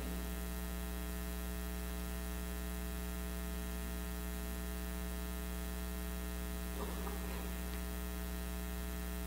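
Steady electrical mains hum with a buzzing stack of overtones, unchanging in level, and a faint brief sound about seven seconds in.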